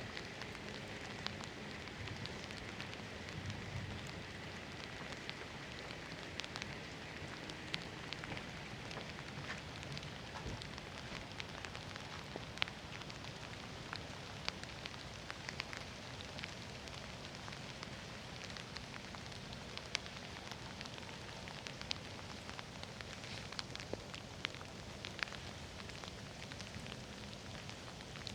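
Steady rain falling, with many scattered sharp ticks of drops landing close by.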